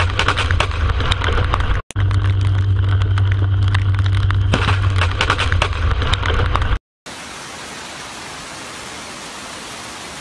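Heavy rainstorm heard on a phone microphone: a loud, steady low rumble with dense crackling, briefly cutting out near two seconds in, then stopping abruptly about seven seconds in. A steadier, quieter hiss of falling rain follows.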